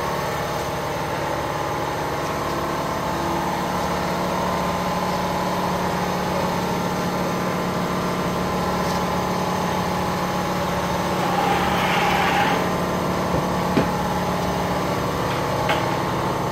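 Steady mechanical drone of machinery running in a car-detailing bay, with a few light clicks near the end.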